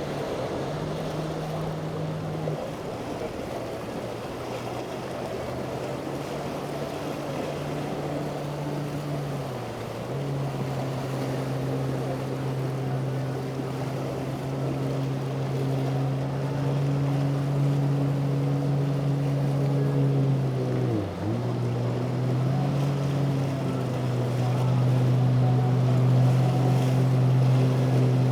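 Motorboat engine running steadily at speed, its note dipping briefly and coming back up twice, and growing louder near the end, over wind and wave noise.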